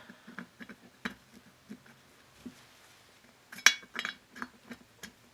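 Scattered light metallic clicks and clinks as the cylinder of a Honda Dio two-stroke scooter engine is worked down over the oiled piston and rings, with one sharper, ringing clink about three and a half seconds in.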